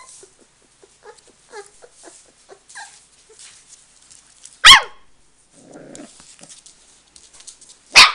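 Samoyed puppy giving two loud, sharp barks about three seconds apart, with soft whines and yips before the first and a brief low growl between them.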